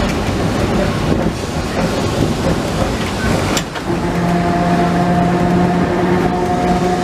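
Vintage electric tramcar running on its rails, heard from inside the car: a steady rumble and rattle of wheels and body. A sharp click comes about three and a half seconds in, then a steady hum from the running gear sets in and holds.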